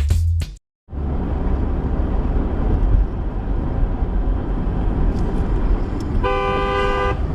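A car horn from the car behind gives one steady honk about a second long near the end, an impatient honk at the car ahead that looks to be just sitting. Under it runs steady road and engine rumble heard inside the dashcam car, with a brief cut to silence near the start.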